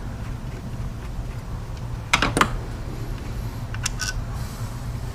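A few sharp clicks and knocks from hand work on the engine as an ignition coil is pulled out: a pair about two seconds in and another pair about four seconds in, over a steady low hum.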